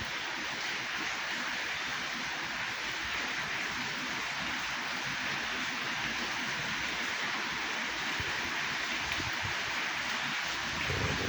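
Steady rain falling, an even hiss without pauses, with a few soft low thumps near the end.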